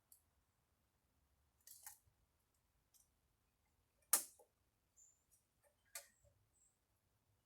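A few scattered sharp clicks and knocks, the loudest about four seconds in.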